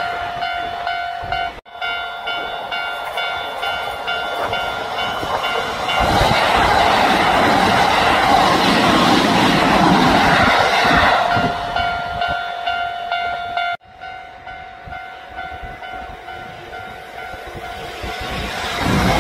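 Electric train running on rails, with a steady high-pitched tone and its overtones through much of it. A louder rush of train noise takes over from about six to eleven seconds in. The sound cuts out for an instant twice.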